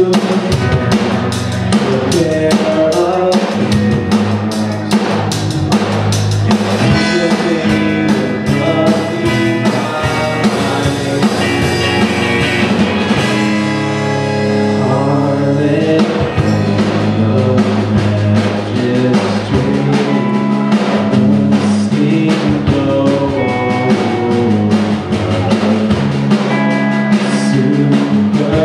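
A live rock band plays: a drum kit, electric bass, electric guitar and keyboard. The drum hits thin out for a few seconds about halfway through, then the full kit comes back in.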